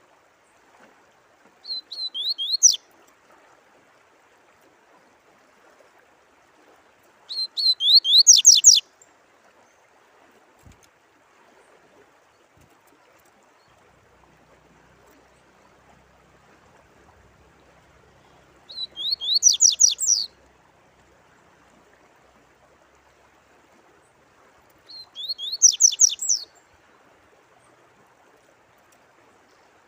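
A songbird sings four short song phrases, each a quick run of sweeping high notes lasting one to one and a half seconds. Behind them is the faint, steady sound of running water.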